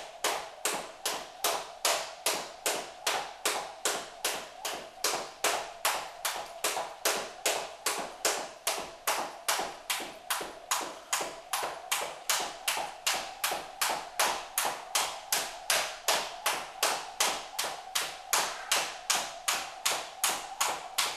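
Jump rope skipping on a hardwood floor: the rope and sneakers hit the floor in an even rhythm, about two and a half times a second.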